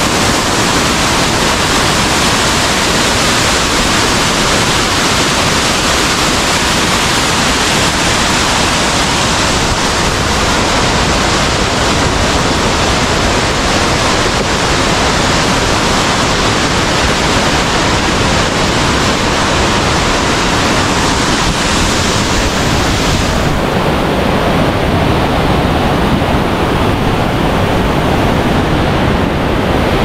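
Loud, steady rush of a swollen mountain stream and waterfall, an even roar of falling water; the hiss loses its brightest top end about 23 seconds in.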